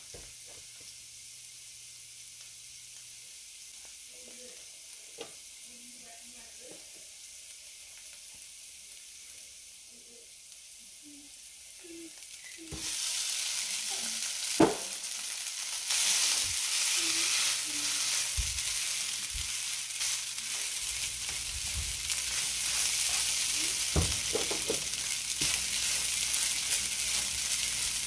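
Turmeric and garlic frying gently in oil in a nonstick pan, a soft steady sizzle. About halfway through, cold cooked rice is dropped in and the sizzle becomes much louder, with the spatula knocking and scraping against the pan as the rice is stirred.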